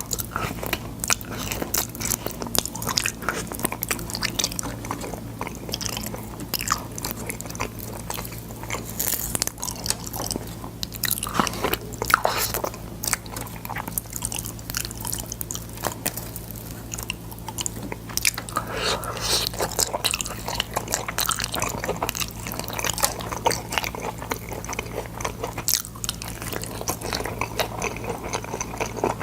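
Close-miked chewing and biting of boiled sword bean pods: a dense run of small crunches and mouth clicks, with a few louder bites, over a steady low hum.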